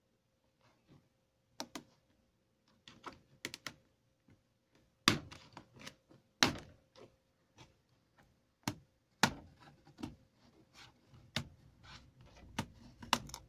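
Plastic clips of an HP Stream 11 laptop's keyboard deck snapping loose as it is pried off by hand: irregular sharp clicks and taps, the loudest about five and six and a half seconds in.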